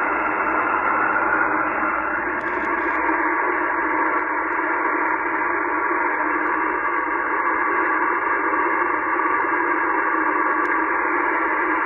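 Steady static hiss from a Yaesu FT-891 HF transceiver's receiver tuned to the 10-metre band in single-sideband, with no station talking. The hiss is narrow and thin, like a telephone line, with the highs cut off by the receiver's filter.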